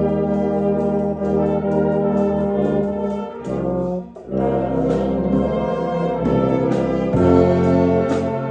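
Youth concert band playing full, sustained brass-heavy chords, with a St. Petersburg 202 LP tuba carrying the low bass notes. There is a short break about four seconds in before the band comes back in.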